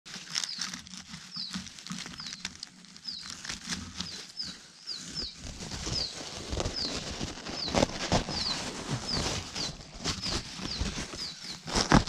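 Cuckoo nestling calling with short, high, down-slurred chirps, repeated about twice a second, over rustling of dry grass and pine needles. A louder rustle with a couple of knocks comes near the end.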